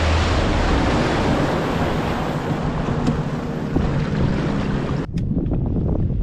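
Bass boat running fast across the lake: a heavy rush of wind on the microphone over the outboard and hull noise. About five seconds in it cuts off abruptly to softer, gusty wind buffeting the microphone.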